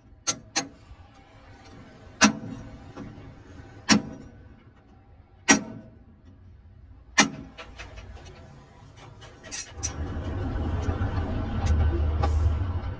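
Sharp knocks on metal, about six of them spaced roughly a second and a half apart. From about ten seconds in, a machine motor runs steadily with a low hum.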